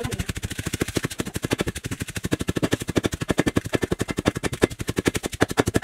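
Wooden pestle pounding chilies and garlic in a mortar for Thai salad, a fast, steady run of knocks.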